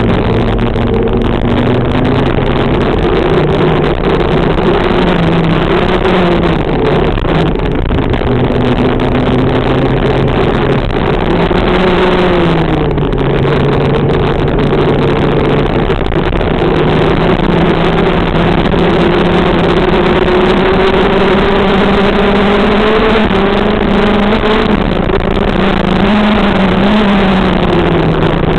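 TM K9 125 cc water-cooled two-stroke shifter-kart engine heard close up at racing speed, its pitch rising and falling again and again as the kart accelerates and slows through corners.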